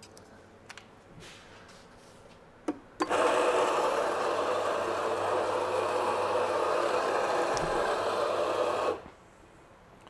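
Anfim SP II commercial espresso grinder grinding a dose of coffee beans into a dosing cup, a steady grinding noise of about six seconds. It starts with a click about three seconds in and cuts off sharply near the end.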